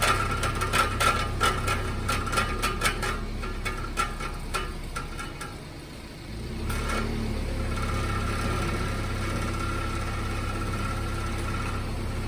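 Subaru R1's engine running with a metallic rattling from the rear main muffler, where the weld of the baffle inside has probably come loose. The rattling is strongest in the first half and eases about six seconds in, leaving a steady engine hum.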